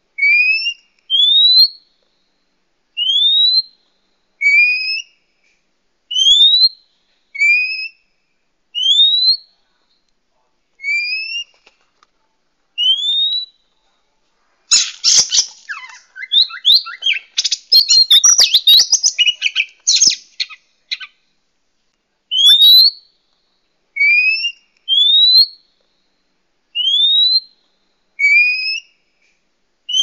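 Oriental magpie-robin giving short, clear rising whistles, roughly one every one to two seconds, stepping between higher and lower pitches. About halfway through, a burst of rapid, varied chattering song lasts about six seconds before the single whistles resume.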